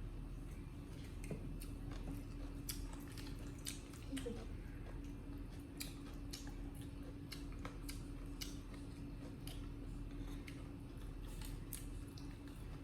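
Monkeys eating: irregular sharp clicks and crunches of chewing and handling food, over a steady hum.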